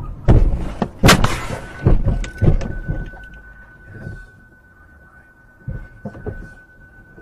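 A car crashing into the back of a pickup truck: a few heavy impact bangs in the first three seconds, the loudest about a second in, then a steady high beep that holds on, with two softer thumps near the end.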